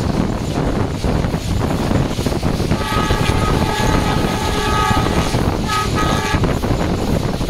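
Express train running at speed, with wheel rumble and wind on the microphone. About three seconds in, the ZCU-30 diesel locomotive's multi-tone horn sounds one long blast, then a short one.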